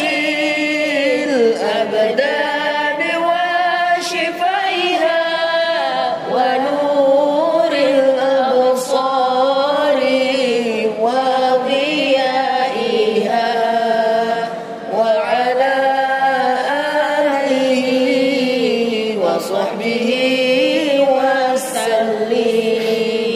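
A solo voice singing a sholawat in a slow, melismatic style, holding long notes that glide and waver in pitch, with only a brief break about 15 seconds in.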